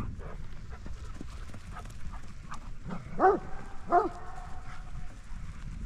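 A dog barks twice, about three seconds in, the two barks roughly a second apart, over a low steady rumble.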